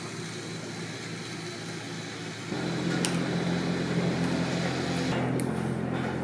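A steady low mechanical hum that steps up louder about two and a half seconds in, with a couple of light clicks.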